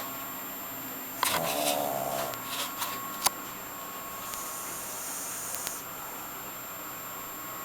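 Pug snoring in its sleep: one loud snore about a second in, then quieter breathing with a faint high hiss in the middle. A sharp click comes about three seconds in.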